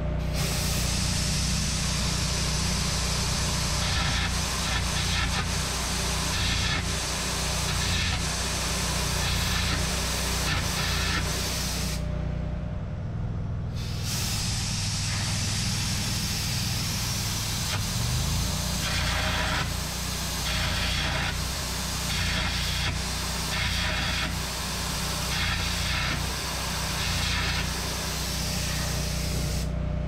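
Gouging out a weld on a steel skid steer axle tube: a loud, steady hissing blast with crackle. It stops for about two seconds around twelve seconds in, then resumes, over a steady low hum.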